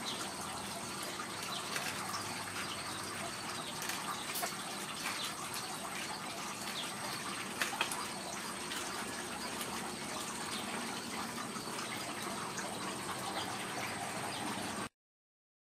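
Kittens at play with a plastic ball-track toy: scattered light clicks and rattles over a steady hiss, the sound cutting off abruptly near the end.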